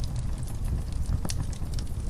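Wood fire in a fireplace crackling: irregular sharp pops and snaps, several a second, over a low steady rumble of the flames.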